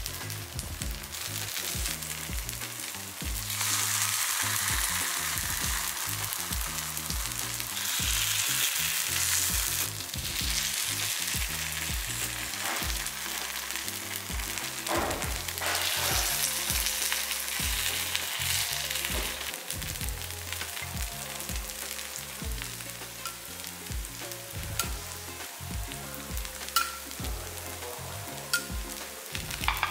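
Paniyaram batter sizzling in ghee and sesame oil in the wells of a paniyaram pan as the dumplings are turned with a wooden skewer. The sizzle swells and eases a few times, and a few light clicks come near the end.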